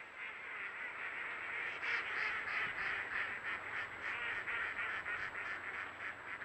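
A big flock of ducks quacking and calling all at once, a dense chatter of rapid overlapping calls that starts suddenly.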